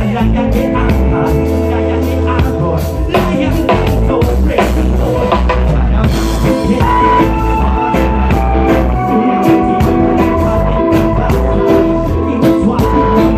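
Live reggae band playing: a man sings over acoustic guitar, electric bass, electric guitar, drum kit and keyboard, with a steady beat and a strong bass line.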